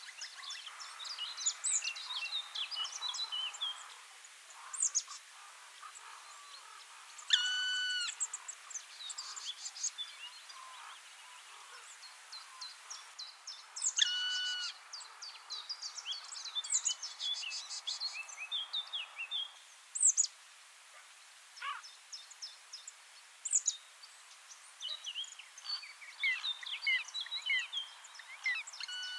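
Birds chirping and calling: many short, quick high chirps and trills, with two longer held calls about seven and fourteen seconds in.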